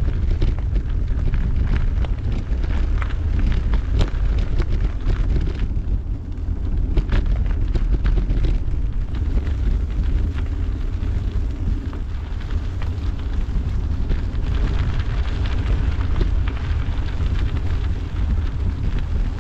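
Wind buffeting the microphone of a camera on a moving bicycle, with the rumble of tyres rolling over a gravel path and scattered sharp crunches and clicks from the stones.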